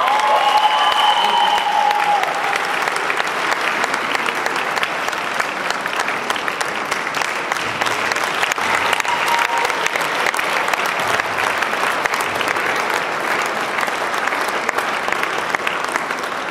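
A congregation applauding, a dense, steady clatter of many hands clapping.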